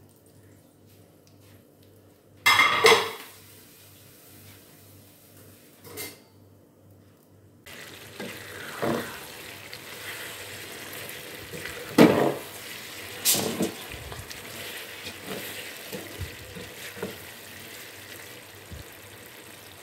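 A clatter of dishes, then shredded chicken and onions frying in a large pan with a steady sizzle, a spatula stirring and knocking against the pan several times.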